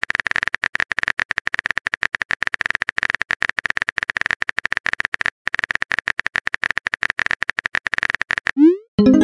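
Rapid clicking of a phone keyboard typing sound effect as a chat message is typed in, with a brief pause about five seconds in. Near the end the typing stops and a short rising whoosh follows, the sound of the message being sent.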